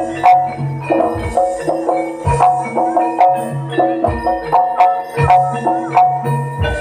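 Gamelan music for a jaranan dance. Metallophones play a quick repeating mallet melody over longer low notes, with a hand drum striking about once a second.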